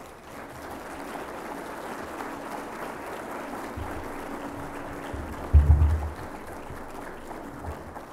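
Audience applauding steadily. A dull low thump about five and a half seconds in is the loudest sound, with a weaker one a little earlier.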